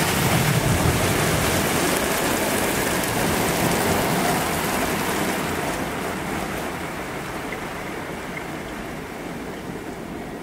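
An automatic car wash spraying water onto the car's windshield, heard from inside the car: a dense, steady hiss of water on the glass that grows softer from about six seconds in.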